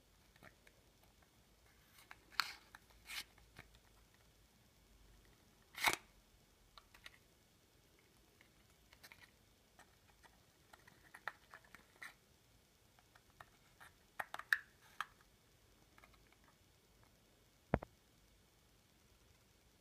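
Faint handling sounds of a cardboard and paper prank gum pack: rustling, scraping and scattered light clicks as the gum stick is slid in and out of the box, with one sharp click near the end.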